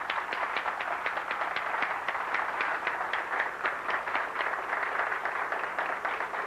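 Audience applauding in a hall: many hands clapping at once, starting with a few claps and fading out near the end.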